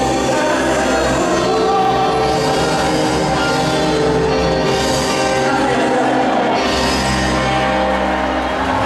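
A live band playing amplified through a PA: electric guitars and drums under sung vocals, with brief cymbal washes.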